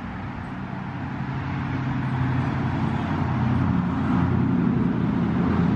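Battery-powered kids' ride-on car driving, its electric drive motors and gearboxes humming steadily while its plastic wheels roll over dry leaves and grass. It grows louder from about two seconds in.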